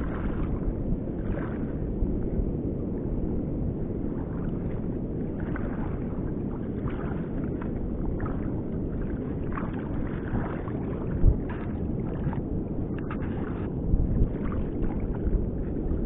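Wind buffeting the microphone in a steady low rumble, over shallow seawater sloshing around a wading angler. There is one sharp thump about eleven seconds in and a few smaller knocks near the end.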